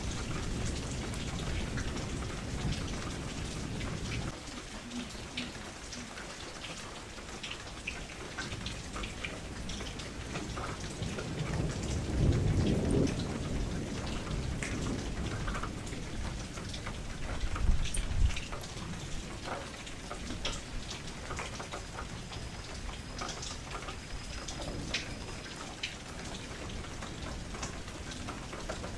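Steady rain falling against a window, with separate drops ticking. Low rumbles of thunder come through: one fading out over the first few seconds, a stronger one near the middle, and a short one soon after.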